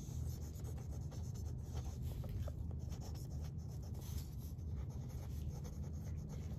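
Pen writing in joined-up script on textured paper: a steady, dry scratching of the tip across the page.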